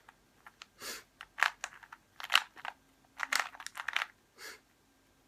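Rubik's Cube layers being twisted by hand: quick, irregular plastic clicks and clacks in clusters. The clicks stop about four and a half seconds in.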